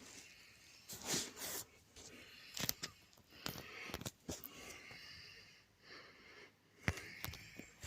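Faint scattered rustles and a few sharp clicks.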